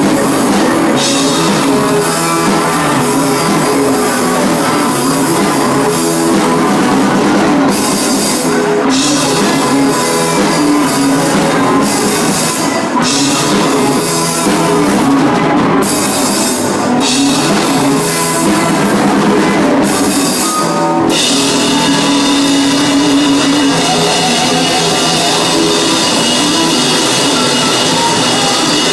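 Rock band playing live and loud, with electric guitars over a drum kit.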